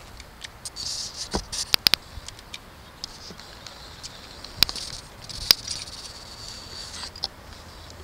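Hand-pumped Temco TH0005 hydraulic crimper clicking as its handle is worked to crimp an Anderson SB175 connector onto welding cable: a quick run of sharp clicks a little before two seconds in, then two single clicks about a second apart near the middle.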